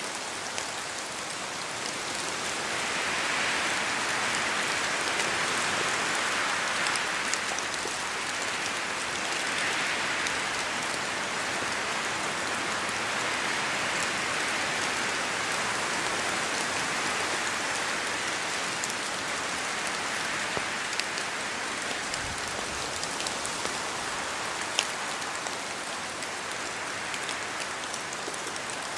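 Steady rain falling in a forest, with scattered sharper drops falling from the trees. The hiss swells and eases every several seconds, as wind moves through the trees.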